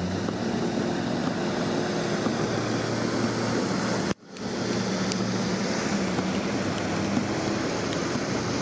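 Pickup trucks and SUVs driving through deep floodwater: a steady rush of spray thrown up by the tyres, with the low hum of the engines under it. The sound drops out for a moment about four seconds in.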